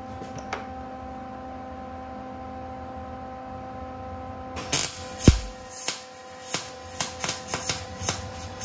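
A steady electrical hum, then from about halfway through a MIG welding arc on sheet steel, crackling and popping in quick, irregular spurts. A single loud thump comes just as the arc starts.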